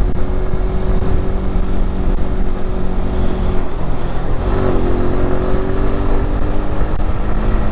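Motorcycle engine running under way, heard from the bike itself. Its note changes about four seconds in and then holds steady again.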